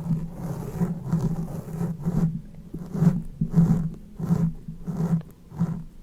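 Close-miked ASMR mouth sounds: a steady run of short, rasping bursts, about two a second.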